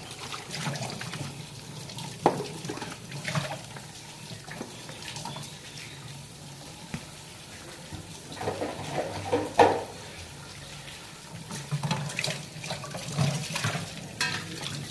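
Tap water running steadily into a stainless steel kitchen sink while dishes are washed by hand, with scattered knocks and clinks of plastic boxes, a steel bowl and a plate. The loudest knock comes about two-thirds of the way through, and several more come near the end.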